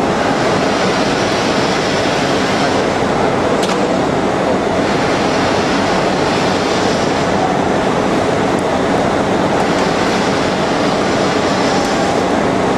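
CNC shaping lathe turning a porcelain insulator blank: a loud, steady, even noise. A higher hiss swells and fades several times, and a single sharp click comes about four seconds in.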